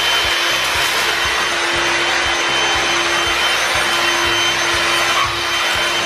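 Philips PowerPro Duo FC6168 cordless stick vacuum cleaner running steadily on its max setting: a constant rush of air with a steady whine, its floor nozzle pushed over floor tiles.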